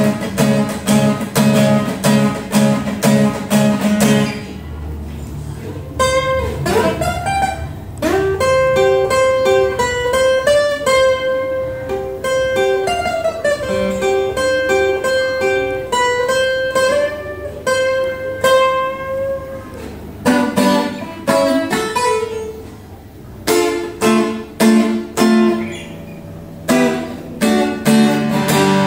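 Yamaha F310 steel-string acoustic guitar played solo. It opens with strummed chords, moves to a picked single-note melody with held notes from about six seconds in, and goes back to strumming after about twenty seconds.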